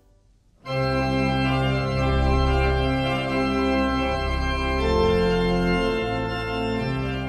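Pipe organ playing full, sustained chords over a deep pedal bass, the chords changing about once a second. It comes in suddenly under a second in, after near silence.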